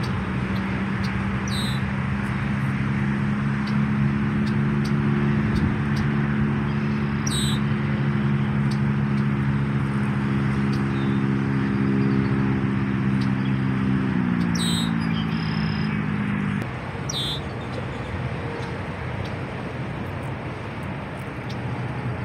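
Steady rush of nearby freeway traffic, with a droning motor vehicle engine that drops in pitch about 14 seconds in and cuts out about 17 seconds in. A few short high bird chirps sound over it.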